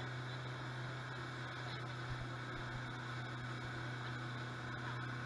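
115-horsepower outboard motor running at a steady cruising speed, a constant low drone under a steady hiss of wind and water.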